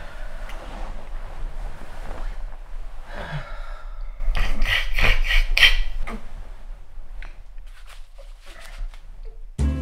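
Man snoring: breathy snoring noise, then one loud, rough snore a little over four seconds in that lasts about a second and a half.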